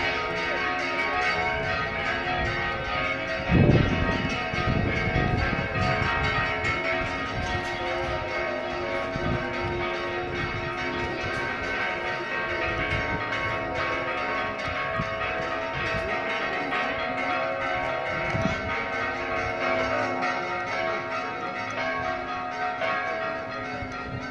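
Church bells ringing a festive repique, many bells sounding together in a continuous dense peal, with a loud low thump about three and a half seconds in and the peal a little fainter near the end. This repique is the bells' welcome for an arriving brotherhood (hermandad).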